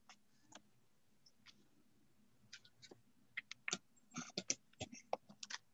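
Faint, irregular clicks and taps, sparse at first and coming quickly one after another in the second half, over a faint low hum.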